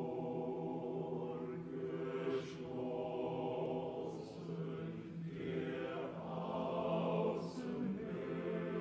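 A choir singing unaccompanied, holding long sustained chords that shift slowly, with a few hissed 's' consonants cutting through three times.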